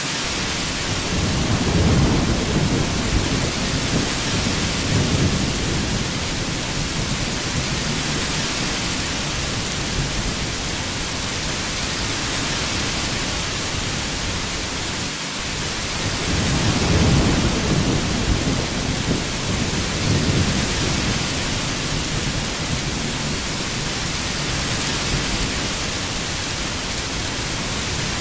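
Heavy rain falling in a steady hiss, with two rolls of low thunder swelling and fading, one a couple of seconds in and another about midway.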